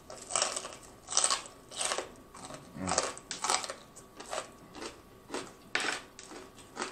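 Close-miked chewing of crunchy fried chicken: crisp, crackly crunches about two a second as the fried coating is chewed.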